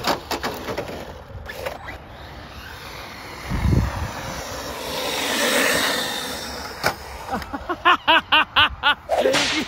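Arrma Mojave 4S brushless RC truck running on tarmac, with a loud thud about three and a half seconds in as it tips over onto its side. Near the end comes a fast run of about eight short pitched bursts, each rising and falling, roughly four a second.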